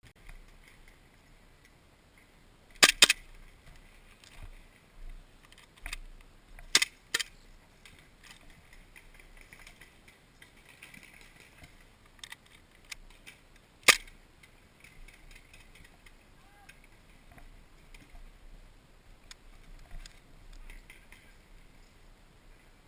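Airsoft guns firing: sharp single cracks, with a quick burst of three about three seconds in, two more shots a few seconds later and one more about fourteen seconds in. Fainter clicks and rustling sit between them.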